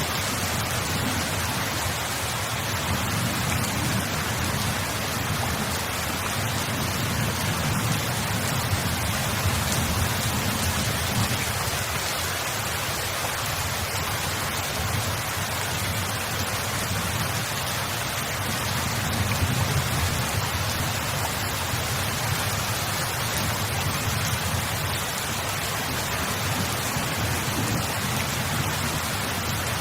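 Steady rain pouring down, an even hiss of drops, with a low rumble underneath that swells and fades every few seconds.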